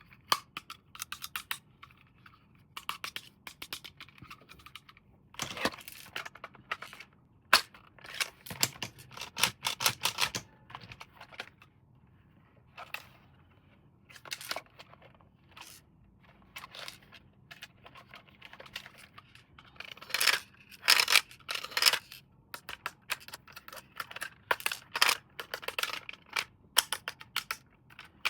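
Toy packaging being handled and opened by hand: irregular bursts of crinkling, crackling and clicking, busiest twice, with short quiet gaps between.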